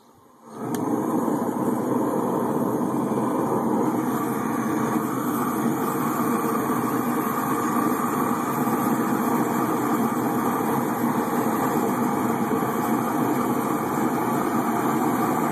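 A handheld heating tool held into the base of a rocket stove switches on sharply and runs with a steady, loud rushing roar, heating the stove's bottom and pipe to get the draft going.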